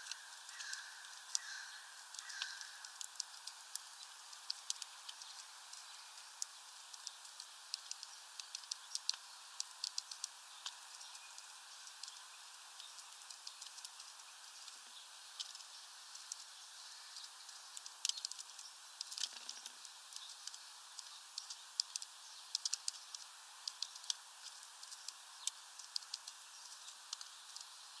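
A great tit pecking at peanuts through a mesh feeder bag: rapid, irregular sharp taps and clicks, several a second.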